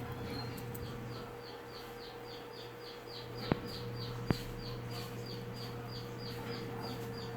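A rapid, regular series of short, high chirps, about three a second, from a small animal. Two sharp clicks come about halfway through, over a steady low hum.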